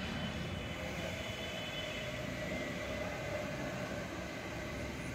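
Steady outdoor background noise: a continuous low rumble with a faint hum over it, with no distinct events.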